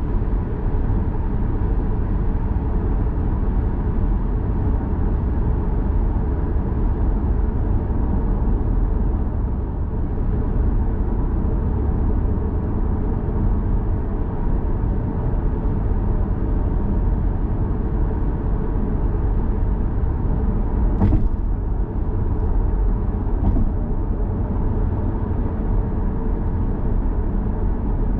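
Steady road and tyre noise of a 2011 Lexus GS450h hybrid saloon driving at cruising speed, with a sharp click about three-quarters of the way through and a fainter one a couple of seconds later.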